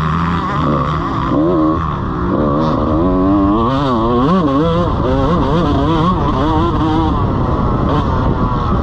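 125cc two-stroke motocross bike engine, heard from the rider's helmet camera, its pitch rising and falling over and over as the throttle is opened and closed through a corner and down a straight.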